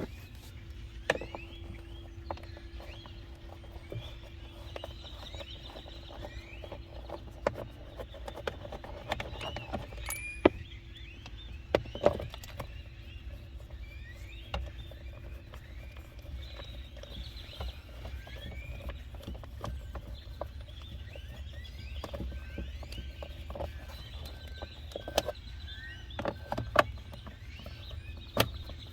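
Scattered clicks and knocks of hand-tool work on a car's steering column as the screws of the plastic column cover are taken out, over many small bird chirps and a steady low rumble.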